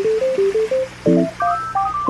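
Background music: a light electronic melody of short stepped notes over held chords.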